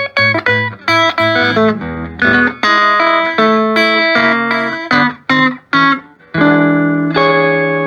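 Telecaster-style electric guitar played through a Fender Twin Reverb amp with a 15-inch JBL speaker: a run of short picked notes and chords, then a chord struck about six and a half seconds in and left ringing.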